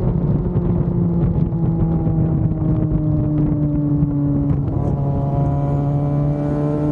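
Yamaha FZ6 Fazer 600's inline-four engine running under way, its pitch sinking slowly for about four and a half seconds, then jumping up and climbing gently.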